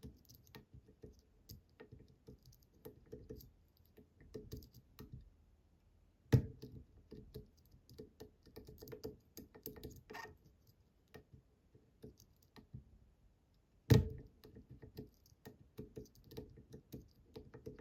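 Small irregular clicks and ticks of a pick working the pins of a Bramah-style pump lock, with a louder sharp knock about six seconds in and another about eight seconds later.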